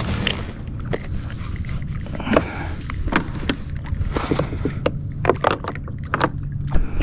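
Scattered sharp knocks and clicks as a fish lip-grip tool and other gear are handled against a plastic fishing kayak, several close together near the end, over a low steady hum.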